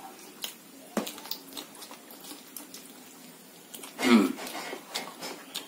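Close-miked chewing by hand-fed eaters: scattered wet mouth clicks and smacks. A short voice sound, the loudest thing, comes about four seconds in.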